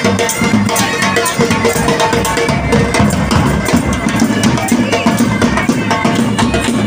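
Pipe band playing: bagpipes holding steady drone tones under a chanter melody, with a bass drum and snare drums beating along.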